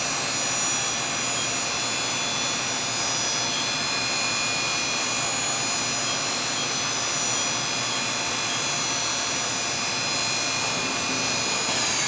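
Spindle of a 1988 Matsuura MC-600V CNC vertical machining center running steadily at its 7,000 RPM top speed through the geared drive's high gear, a steady high whine of many tones. Right at the end the whine begins to fall in pitch as the spindle starts to spin down.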